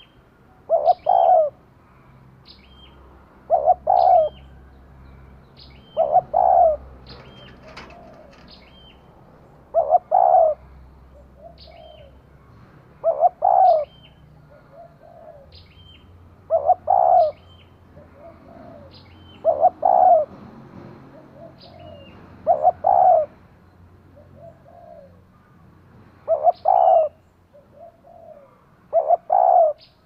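Female spotted dove cooing, the call a hen uses to draw in males: a short, low double coo repeated about every three seconds, ten times. Short high chirps sound between the coos.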